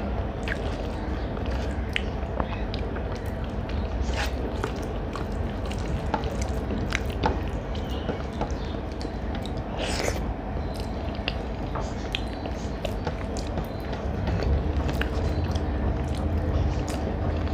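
A person chewing food close to the microphone: wet mouth sounds with scattered sharp clicks, over a steady low hum that grows a little louder near the end.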